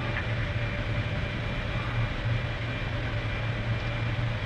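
Steady low rumble and hiss of a deep-sea submersible running underwater, a constant hum with no distinct events.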